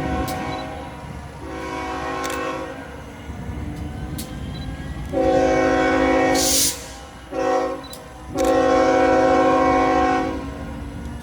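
Diesel locomotive air horn sounding a multi-note chord in the long, long, short, long pattern of a grade-crossing signal, the first blast fainter, over the low rumble of the running locomotive. A brief hiss sounds near the end of the second blast.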